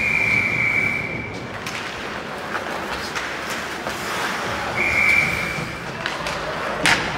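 Two steady, high blasts of a sports whistle on the ice, each about a second long, the second coming about five seconds after the first. A single sharp knock near the end.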